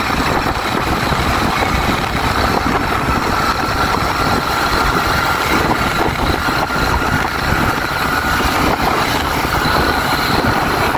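Motorcycle engine running steadily on a climb up a steep mountain road, with a constant high whine over it and heavy wind rumble on the microphone.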